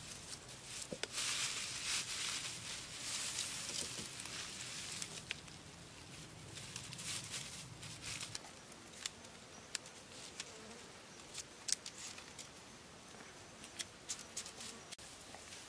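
Rustling and crackling of cut grass and sticks being handled as bundles of grass are pressed and tied onto a frame of bent sticks, with many small sharp clicks. An insect buzzes through the first half and stops about eight seconds in.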